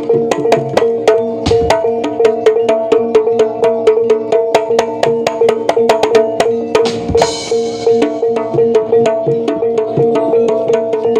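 Jaranan ensemble music: steady held notes under a fast, even run of drum strokes, about five a second, with a bright crash about seven seconds in.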